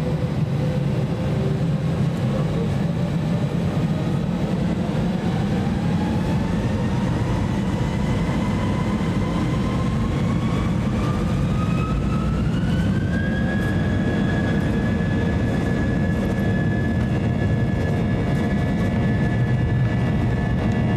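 Airbus A320-200's jet engines spooling up for takeoff, heard from inside the cabin: a whine rising in pitch for about ten seconds, then holding steady, over a constant low rumble.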